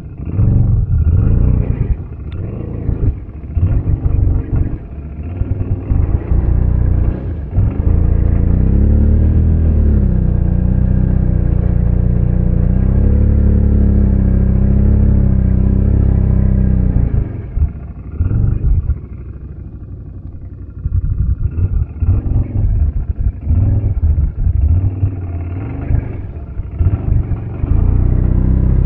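ATV engine working hard through a deep mud hole: choppy throttle at first, then a long steady high-rev pull of about nine seconds in the middle. It eases off briefly about two-thirds of the way in, then comes back in short bursts of throttle.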